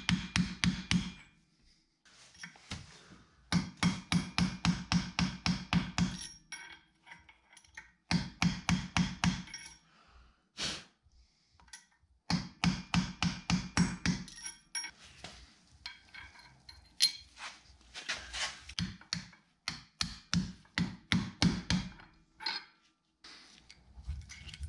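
Hammer striking a steel socket to drive a new driveshaft center support bearing into place. The blows are quick, ringing metal clanks at about five a second, in runs of a couple of seconds with short pauses between them, and they thin out near the end.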